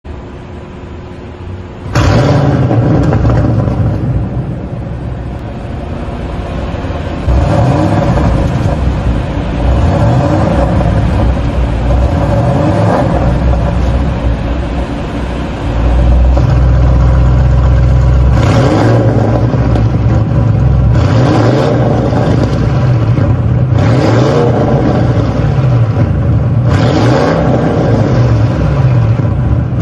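Audi RS6 (C8) 4.0-litre twin-turbo V8 with catted downpipes and a resonator delete, running stationary and free-revved again and again in a concrete parking garage. It jumps sharply in loudness about two seconds in.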